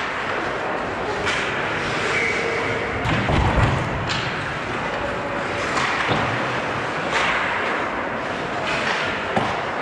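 Ice hockey play on a rink: a steady scrape of skates on the ice, with sharp clacks of sticks and puck several times, and one heavy thud about three and a half seconds in, around a shot on goal.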